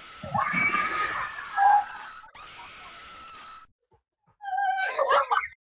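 Cat jumpscare sound effect: a hissing screech with a steady high whine for about three and a half seconds, then a short yowl near the end.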